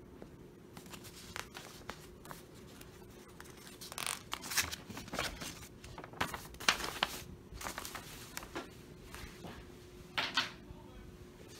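A folded paper map being opened out by hand, the paper rustling and crinkling in a string of short bursts, most of them between about four and seven seconds in and one more near the end.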